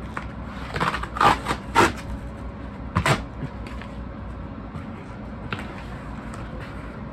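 Cardboard record mailer's perforated tear strip being ripped open: a few short tearing sounds about a second in and another about three seconds in, then quieter handling of the cardboard.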